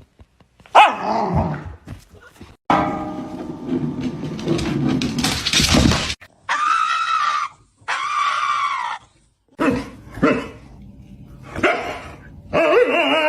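Dogs barking and giving drawn-out calls, several separate sounds each about a second long, starting and stopping abruptly.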